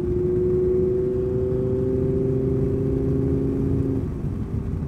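Audi R8's 610 hp V10 engine heard from inside the cabin, pulling under acceleration with a slowly rising note, which drops away about four seconds in.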